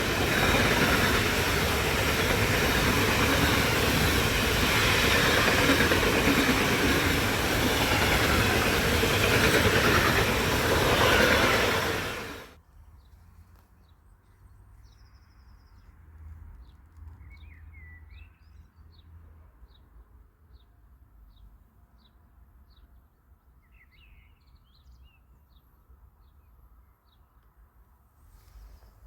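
A train passing close by, its wheels running on the rails in a loud, steady rush that stops abruptly about halfway through. After that it is quiet, with small birds chirping faintly.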